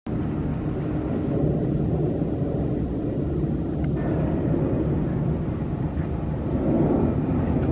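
Airbus A320 jet airliner climbing out after takeoff, its engines heard from the ground as a steady low rumble.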